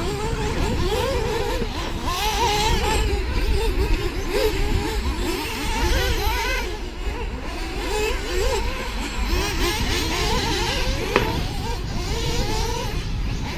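Several off-road radio-controlled model race cars running together, their small motors whining up and down in pitch as they accelerate and back off, over a low rumble of wind on the microphone.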